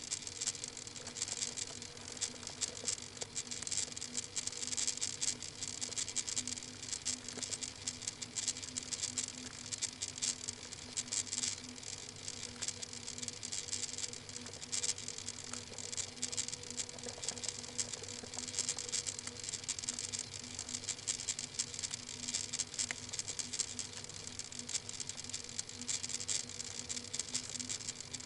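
Steady fine crackling patter over a hiss, with a low steady hum underneath, picked up by the microphone of a nest-box webcam.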